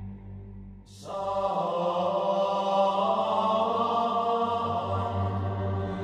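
Background music: a low drone, joined about a second in by sustained chant-like voices that hold steady.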